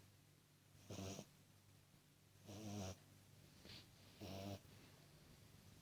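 Beagle puppy snoring in its sleep: three short snoring breaths, roughly every second and a half to two seconds, with a fainter breath between the second and third, over a low steady hum.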